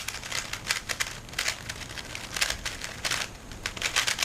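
Speedcube (3x3 Rubik's Cube) being turned fast during a timed solve: rapid, irregular plastic clicking and clacking of the layers.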